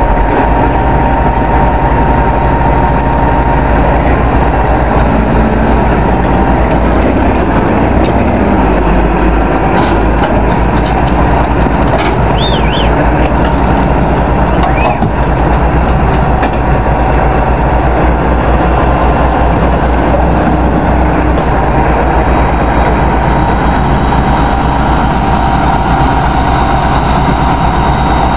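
Heavy diesel engines of crawler bulldozers running hard under load as they pull an overturned mobile crane upright, a steady, dense rumble.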